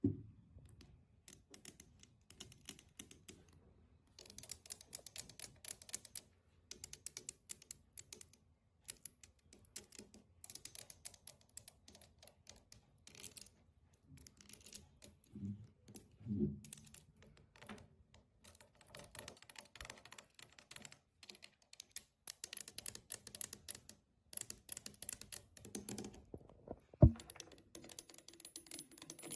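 Long fingernails and metal rings tapping and scratching on a clear crystal glass block, in quick bursts of fast clicking. A single sharper, louder knock comes near the end.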